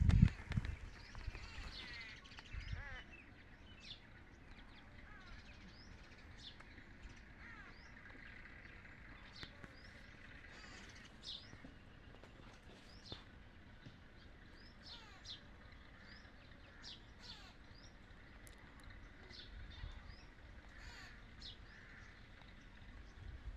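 Birds calling as they feed on scattered grain: many short, faint high chirps and calls scattered throughout, with a few low thumps in the first three seconds.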